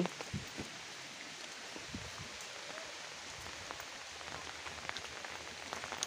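Steady rain, an even hiss with a few faint ticks of single drops.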